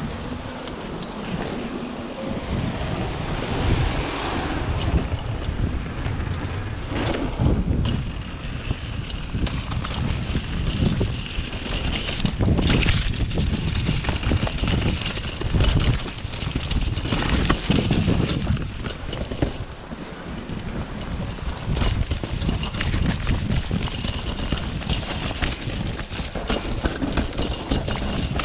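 Wind buffeting a chest-mounted microphone over the rumble and rattle of a mountain bike riding fast down a rough trail, with uneven thuds as it hits bumps.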